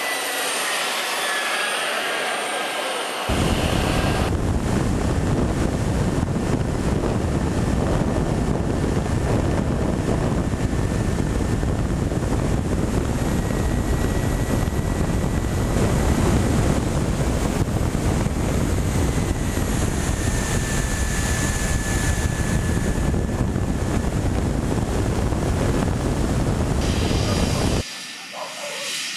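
Radio-controlled model jet passing in flight, its whine rising and falling in pitch. About three seconds in it cuts abruptly to a loud, steady rush of wind and motor noise from a camera on board the model aircraft, with a faint steady whine in it, which switches near the end to a quieter hiss.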